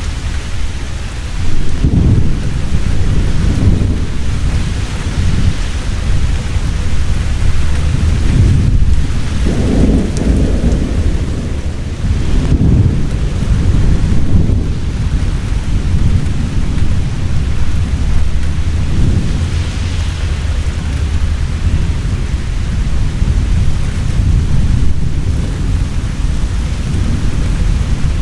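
Heavy rain falling steadily, with thunder rumbling low underneath in repeated rolling swells, the strongest about ten seconds in.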